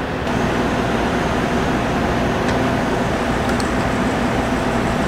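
Steady kitchen ventilation fan noise with a low hum, with a few faint clicks.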